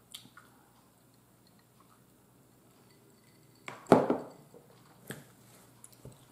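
A few quiet sips from a glass, then the glass set down on the table with a loud knock about four seconds in. A few light clicks follow near the end.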